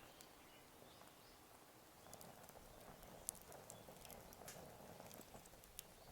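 Wood campfire crackling faintly: scattered sharp pops and ticks, busier and joined by a soft rushing from about two seconds in.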